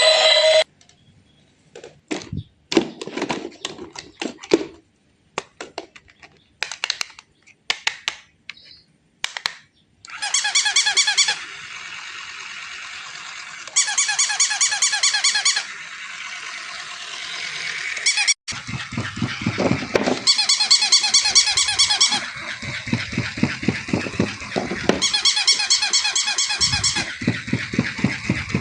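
Battery-operated electronic toys: scattered clicks and knocks, then a high, rapidly warbling electronic chirp in repeated bursts of about two seconds, over a steady hum, with low thumping from about two-thirds in.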